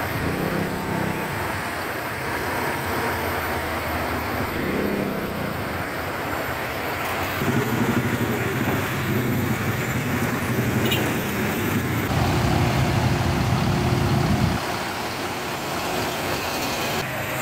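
Road traffic: the engines of cars and trucks in slow, jammed traffic on a steep hill, a steady rumbling roar. The mix changes abruptly about four times.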